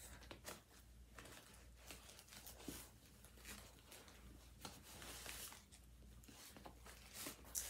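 Faint rustling of a white cloth drawstring dust bag being opened and handled as a handbag is drawn out of it, in short irregular scrapes.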